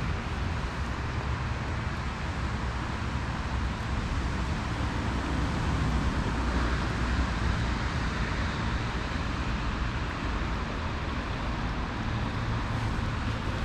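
Steady rushing of flowing river water, with a constant low rumble underneath.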